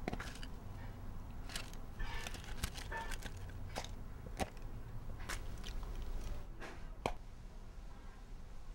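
Metal Altoids peppermint tin being handled: a string of separate sharp clicks and light rattles as the hinged lid is worked and a mint is picked out, over a low steady background hum.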